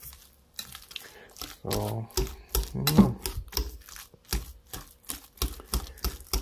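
Wire balloon whisk beating mashed potatoes in a glass bowl. The wires click and scrape against the bowl in quick, uneven strokes, about four a second, as the butter-and-olive-oil mash is whipped creamy.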